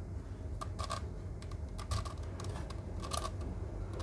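Plastic clicking of a Sengso Crazy Megaminx twisty puzzle as its faces are turned by hand, several quick turns in small clusters with short pauses between.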